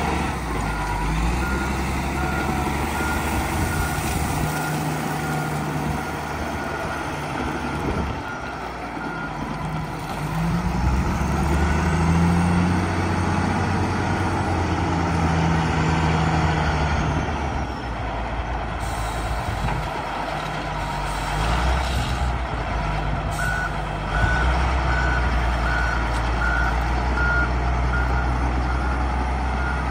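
Caterpillar 966F wheel loader's diesel engine working, its revs rising and falling several times. A reversing alarm beeps steadily during the first several seconds and again near the end.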